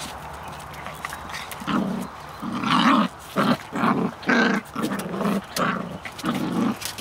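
Puppies play-fighting, one giving a run of short growls, about eight in quick succession, starting about two seconds in.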